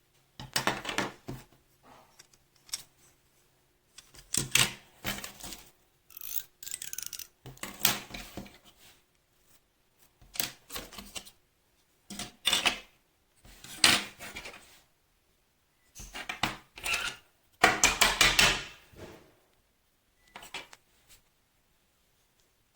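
Hard plastic parts of a hair clipper kit being handled: irregular bursts of clicking, clattering and rustling with short quiet gaps between them.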